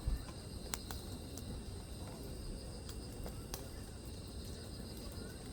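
Wood bonfire crackling, with a few sharp pops, over a steady high-pitched chorus of insects.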